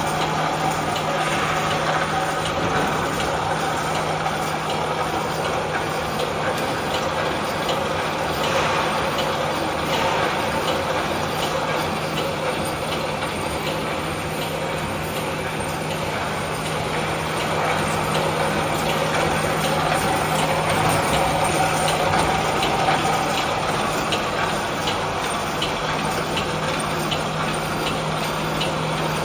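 Wire mesh welding machine running: a steady low hum under a dense, continuous clatter of small clicks.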